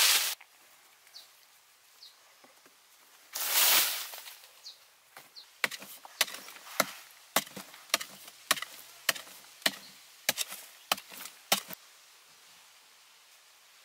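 A hand digging tool chops into a packed sandy earth wall, about a dozen sharp strikes at nearly two a second, from about halfway through. Before that comes one loud rush of noise lasting about a second.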